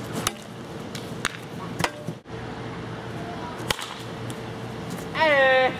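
Sharp cracks of a plastic wiffle ball bat hitting a wiffle ball, four of them spread through the first few seconds. Near the end comes a short loud shout that drops in pitch and then holds.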